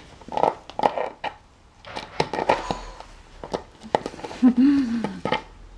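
Small dog chewing and pawing an empty plastic drink bottle: irregular crackles and knocks of the plastic, with a short low vocal sound about four and a half seconds in.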